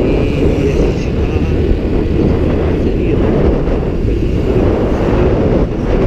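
Heavy wind buffeting on a GoPro's microphone through its open, vented housing while moving: a loud, steady low rumble.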